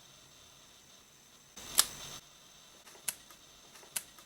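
Quiet room with a sharp click about two seconds in, then short sharp ticks coming evenly a little under once a second.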